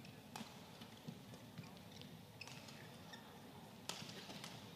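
Badminton rally heard faintly: a few sharp racket strikes on the shuttlecock, the loudest about four seconds in as a player jumps to smash, with light squeaks from shoes on the court.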